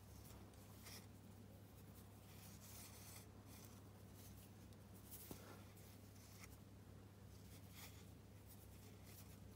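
Faint, soft rustling of macrame cord sliding through fingers and over the other cords as clove hitch knots are wrapped and pulled tight, in short strokes every second or so over a low steady hum.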